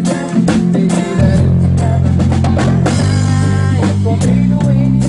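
A band playing a rock song: drum kit beating steadily, with guitar and a sustained bass line.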